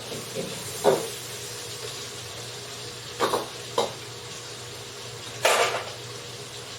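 Kitchen cooking sounds: a handful of short clatters and scrapes of utensils against a pan or bowl, the longest near the end, over a steady background hum.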